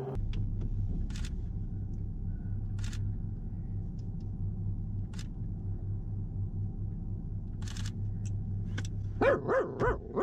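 Vehicle engine idling with a steady low hum, heard close from the hood, with a few faint clicks. Near the end, a few short, louder calls, each rising and falling in pitch.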